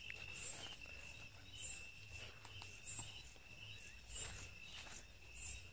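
Night insects calling: a steady high cricket trill, with a second insect's short, higher chirp repeating about every second and a quarter.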